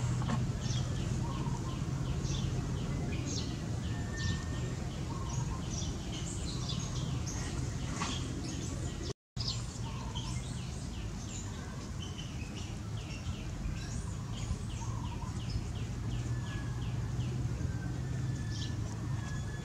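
Small birds chirping: runs of short, high, rapidly repeated chirps over a steady low hum. The sound cuts out for a moment about nine seconds in.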